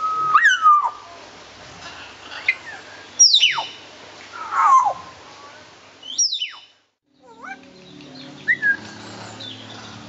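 African grey parrot whistling: a run of loud separate calls, most of them sweeping sharply down in pitch.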